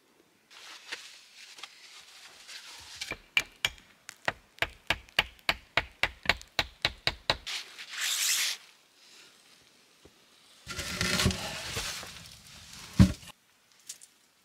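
A fast, even run of sharp knocks, about four a second for some four seconds, between stretches of rustling and scraping noise, with one loud knock near the end.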